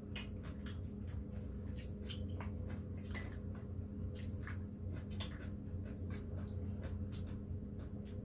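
Eating sounds: irregular small clicks and wet smacks of chewing and of chopsticks picking at food and tapping dishes, over a low steady hum.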